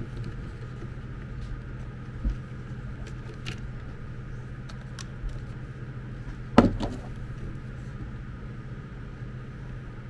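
Plastic parts of an electric kettle's handle and switch button being handled and fitted: a few light clicks and knocks, with one sharp knock about six and a half seconds in, over a steady low hum.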